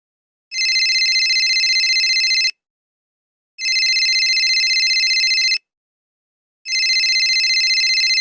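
Telephone ringtone sound effect: three rings of about two seconds each, a second apart, each a high, fast-warbling trill.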